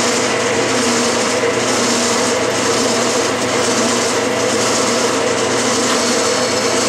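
Metal lathe running with a steady whine as a center drill in the tailstock drill chuck feeds into a casting spinning in the three-jaw chuck.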